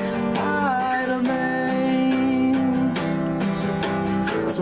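Song with acoustic guitar strumming steadily under a held melody line, in a gap between sung lines.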